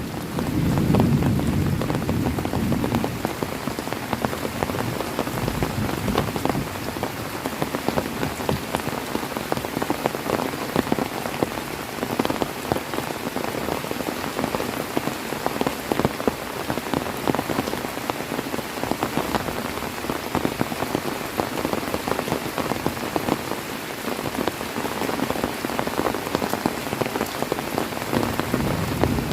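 Heavy rain falling steadily, a dense hiss full of fine drop ticks. In the first few seconds a low rumble of thunder dies away.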